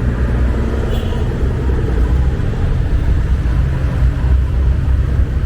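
Steady low rumble of busy road traffic, with no distinct single event standing out.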